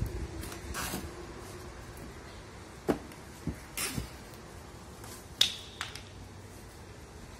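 Fishing line being pulled and wound tight around sphagnum moss on a wooden mounting board. Soft rustling of the moss, with about half a dozen sharp clicks and snaps from about three seconds in, the loudest just past five seconds.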